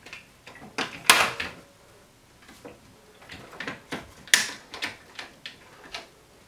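One-handed quick-grip bar clamps being moved and squeezed tight on a roll of seamless paper on the miter saw: a run of plastic clicks and knocks, loudest about a second in and again just past four seconds. The saw is not running.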